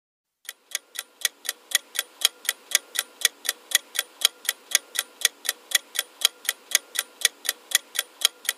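Clock-style ticking sound effect of a quiz countdown timer, even ticks at about four a second, starting about half a second in.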